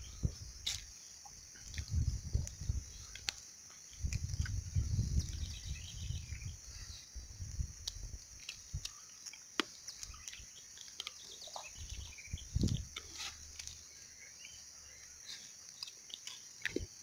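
Outdoor ambience with a steady high insect drone, faint bird chirps and scattered small clicks. Quiet chewing of fried fish is heard, broken by several low rumbling bumps.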